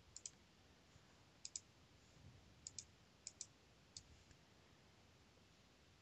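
Faint clicking of a computer mouse button, a few quick double clicks spread over a few seconds of near silence.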